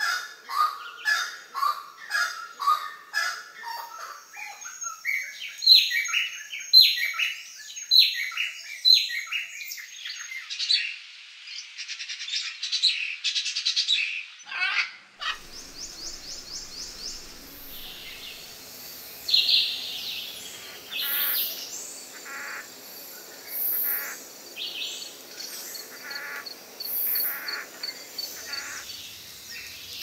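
Wild birds calling and singing: a dense run of rapid repeated chirps and whistles from several birds, then an abrupt change about halfway through to a quieter scene of scattered calls and trills.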